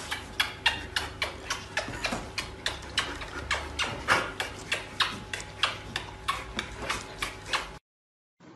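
Rapid, regular clicking taps, about three a second, that stop abruptly near the end.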